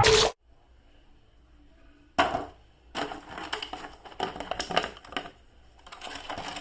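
Plastic toy packaging being handled and crinkled during unboxing, in irregular crackly bursts: one sharp crackle about two seconds in, then a longer stretch of crinkling and a last bout near the end.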